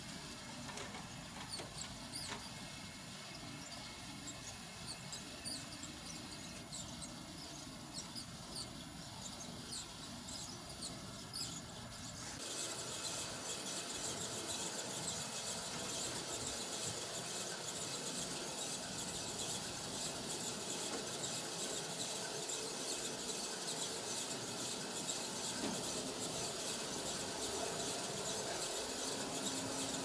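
Small clicks and taps of hands and tools working in an air-conditioner outdoor unit's open control box. About twelve seconds in, a steady high hiss starts and continues, louder than the clicks.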